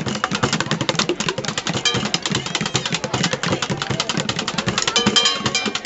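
Street drumming on plastic buckets: a fast, dense run of hits that keeps going without a break.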